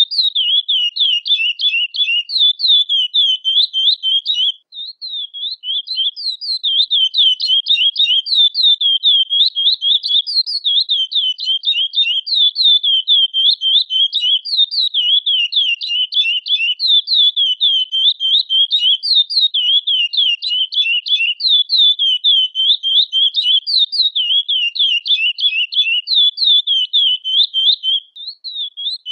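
Curió (chestnut-bellied seed finch, Sporophila angolensis) giving a fast, continuous stream of high, down-slurred chirps. It breaks off briefly about five seconds in and again near the end.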